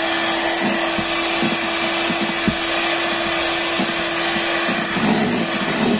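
Electric hand mixer running steadily, its twin beaters whipping non-dairy whipping cream with condensed milk in a stainless steel bowl toward stiff peaks.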